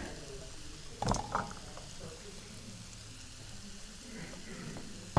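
Two quick metallic clatters about a second in as drained potatoes are tipped from a metal colander back into a cooking pot, with another knock at the very end; otherwise only a faint steady hum.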